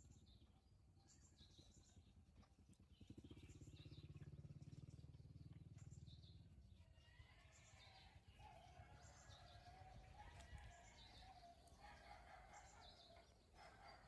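Faint outdoor ambience with small birds chirping again and again. A low rumble swells and fades in the middle, and a wavering hum runs through the second half.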